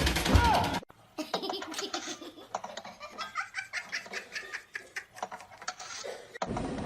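A person laughing hard in a long run of short, quick bursts, beginning a little after a second in and stopping abruptly near the end.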